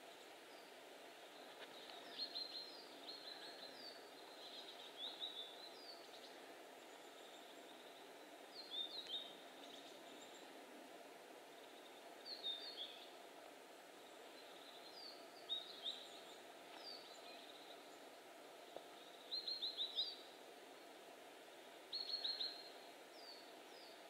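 Small forest birds calling: short, high chirps in quick little groups every second or few, faint over a steady background hiss.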